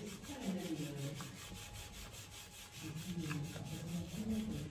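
A plastic cake turntable is turned by hand while the cream filling in a springform pan is smoothed, giving a soft, steady rubbing and scraping.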